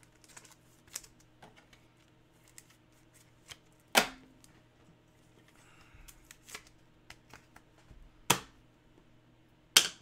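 Trading cards and a clear plastic card case being handled on a wooden desk: light rustling and small taps, with three sharper clicks, one about four seconds in and two more near the end. A faint steady hum sits underneath.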